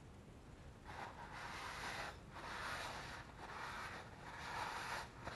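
A folded paper towel wiping out the inside of a lightly used, well-seasoned cast iron skillet: a soft, faint rubbing in several strokes, each about a second long.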